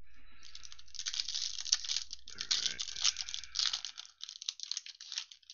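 Foil wrapper of a football trading-card pack crinkling and tearing as it is pulled open by hand: a dense run of crackles that thins out near the end.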